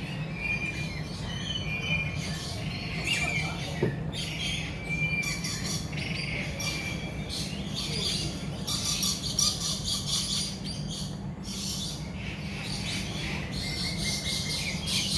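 Birds chirping and calling in repeated bursts of high chatter, with short whistled notes among them, over a steady low hum.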